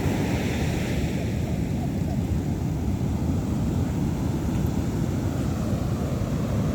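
Heavy ocean surf breaking on the beach: a steady low rumble of big waves with no distinct single crashes, likely mixed with wind on the microphone.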